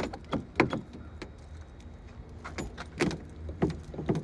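A bunch of keys jangling in hand, giving irregular sharp metallic clicks: a cluster near the start and another about two and a half seconds in.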